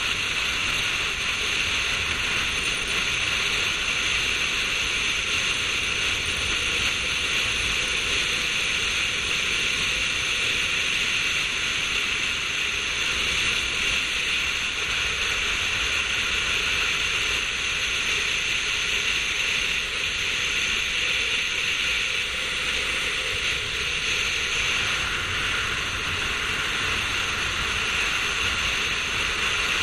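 Steady rush of wind and road noise from a car driving at speed on a racetrack, heard through a camera mounted on the outside of the car.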